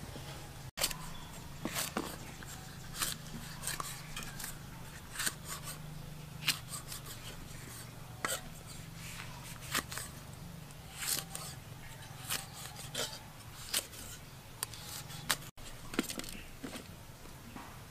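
Kitchen prep sounds: irregular sharp clicks, taps and scrapes of tools on food and hard surfaces, one to three a second, over a steady low hum. Two brief gaps break the sound, one near the start and one near the end.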